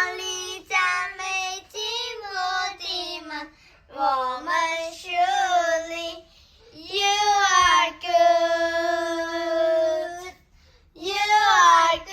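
A child singing a worship song without accompaniment, in short phrases broken by brief pauses. Near the middle the child holds two long, steady notes.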